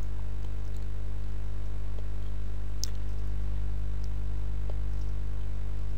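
Steady low electrical hum with a few faint, brief clicks.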